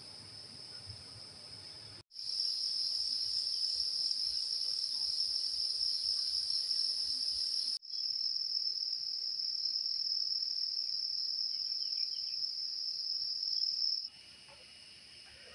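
Steady, high-pitched insect chorus shrilling without a break. It gets much louder about two seconds in, cuts out for an instant near the middle, and falls back to a fainter level near the end.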